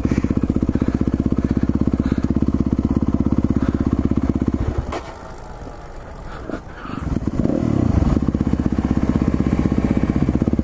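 Yamaha WR250 single-cylinder four-stroke dirt bike engine running steadily under way. About halfway through it drops much quieter for about two seconds, as when off the throttle, then picks up again with a brief rise in pitch.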